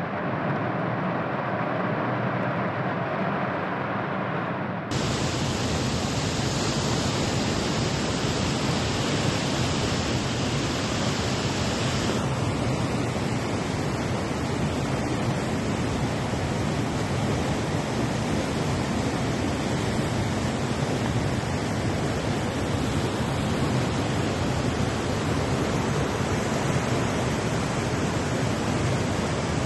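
Heavy rain coming down, a steady rushing hiss. The sound changes abruptly about five seconds in, turning brighter and fuller, and shifts again a few seconds later.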